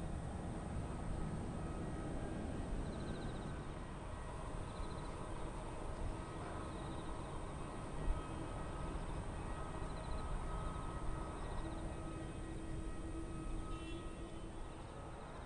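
Boeing 787-8 jet engines at take-off thrust, a steady low rumble as the airliner accelerates down the runway and lifts off.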